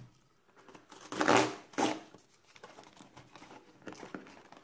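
Cardboard box of a French combat ration being torn open by hand, with a loud rip about a second in and a shorter one soon after, then smaller scratching and crinkling.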